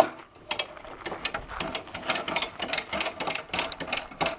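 Rapid, irregular mechanical clicking, several clicks a second with a loud one at the start, from the wood-bending jig's pulley system being worked to haul a steamed Douglas fir board into a bend.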